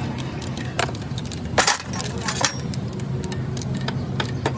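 Metal clinking and tapping, with scattered sharp strikes and a louder one about one and a half seconds in, over a steady low hum.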